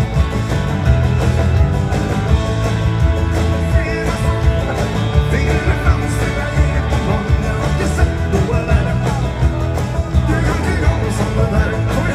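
A live dance band playing an upbeat rock-and-roll number, with electric guitars, bass, drums, keyboards and a steady beat; singing comes in and out over it. Heard from the audience in a large arena.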